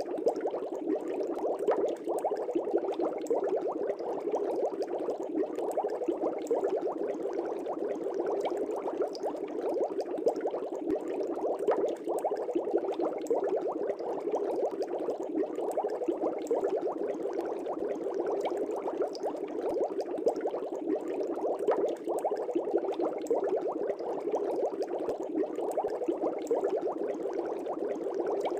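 Air bubbles in a fish tank bubbling steadily and densely without a break.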